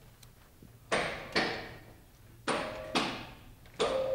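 A lecture-hall sliding chalkboard being handled: several sharp knocks against the board panel, then, a little before the end, the board starting to move with a steady whine.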